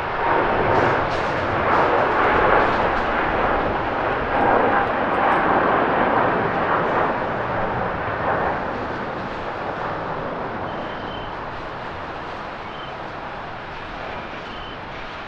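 Jet roar from a Boeing 777-300ER's GE90 turbofans at takeoff thrust as the airliner lifts off and climbs away. The roar is loudest over the first half and fades steadily through the second half as the jet gains distance.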